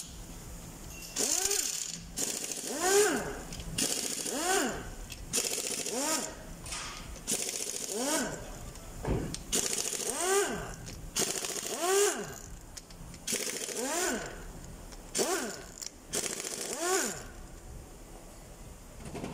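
Impact wrench undoing the camshaft cap bolts on a Toyota 2GR V6 cylinder head: about a dozen short bursts, one every second and a half or so, each a whine that rises and falls with a hiss.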